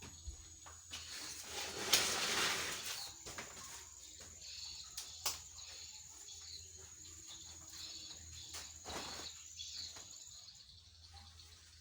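A steady high-pitched insect drone that cuts off near the end, over rustling and a few sharp clicks from wet laundry being handled and hung, with the loudest rustle about two seconds in.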